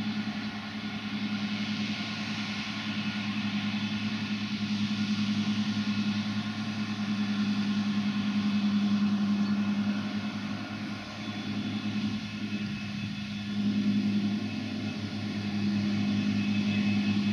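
Krone BiG M self-propelled mower-conditioner working under load while mowing grass: a steady diesel engine hum with a hissing whir over it, growing louder in the last few seconds as the machine comes closer.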